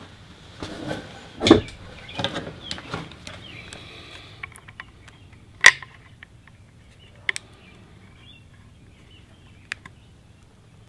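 Handling clicks and knocks from a Crosman 761XL air gun's metal parts and a pair of pliers gripping its receiver during reassembly: a flurry of light knocks in the first few seconds, one sharp click about halfway, then two lighter clicks.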